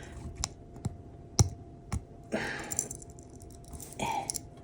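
Four sharp small metal clicks, the third the loudest, from a Gerber Armbar Slim Drive multitool being worked by hand as its stiff liner lock is pressed to fold the blade, then a short rustle of handling. The lock does not give.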